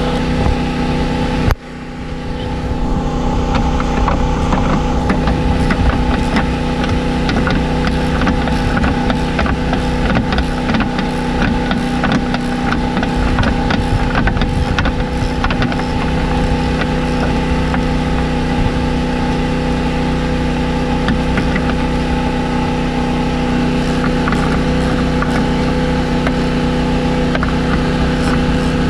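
A steady engine-like hum at a constant pitch. Over it, runs of ratchet-wrench clicks as the 15 mm nuts under the motor mount are loosened. The sound dips sharply for a moment about a second and a half in.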